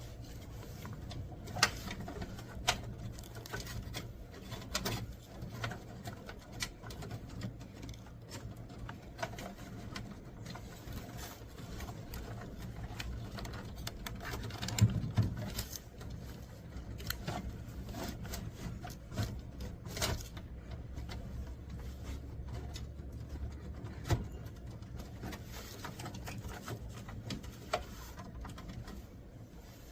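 Scattered clicks and knocks of computer hardware being handled during a hard drive install, over a steady low hum. The loudest knocks come about 2, 15, 20 and 24 seconds in.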